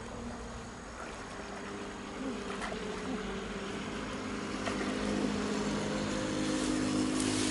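A steady mechanical hum with several held tones, growing louder from about two seconds in, with a few faint clicks over it.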